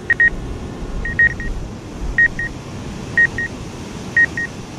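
Double beeps from the DJI flight app on the remote controller, two short high beeps about once a second: a low-altitude proximity warning as the drone hovers close over the water. Steady wind and surf noise underneath.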